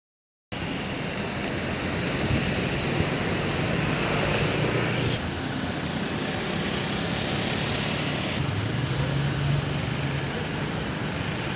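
Road traffic noise: vehicle engines running with a steady low hum, starting about half a second in.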